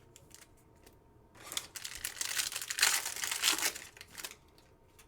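A trading-card pack's foil wrapper being torn open and crinkled: a crackling rustle lasting about three seconds, starting over a second in, after a few light ticks.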